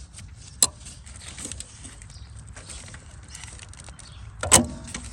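A sharp click about half a second in and a louder clunk with a short ring near the end, over a low steady rumble.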